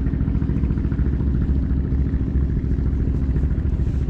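A small engine running steadily at a constant speed, with an even throb.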